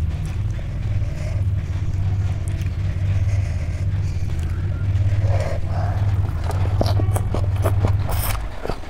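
Mouth sounds of someone eating, with wet clicks and smacks bunched together in the last few seconds, over a steady low rumble that stops near the end.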